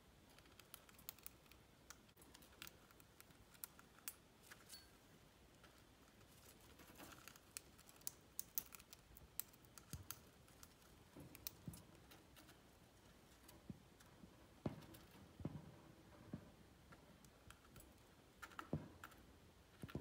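Budgie feeding with its head in a stainless steel bowl: faint, quick, irregular clicks and taps of its beak working the seeds against the metal.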